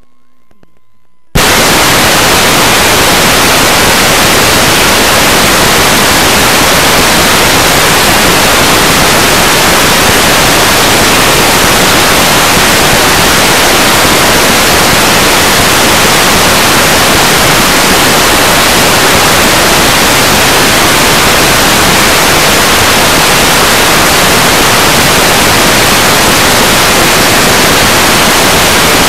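Loud, steady white-noise static, the hiss of a video with no signal, cutting in abruptly about a second and a half in after a few faint thin tones.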